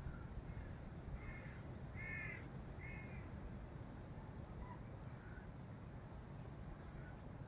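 A crow cawing three times in quick succession, over a steady low background rumble.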